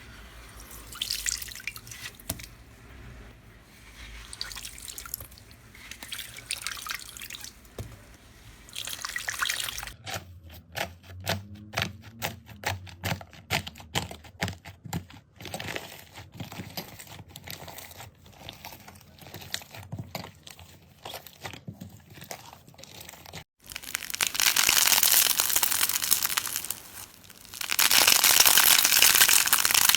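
Slime being squished and poked by hand: wet clicks, pops and crackles across several cut-together clips. Dense sharp popping runs through the middle, and near the end comes a louder, steadier crackly crunching in two swells.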